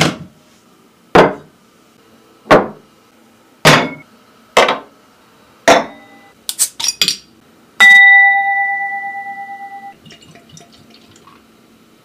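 Six loud single knocks about a second apart, then a few quick taps. Then a stemmed glass is struck once and rings with a clear tone that fades over about two seconds.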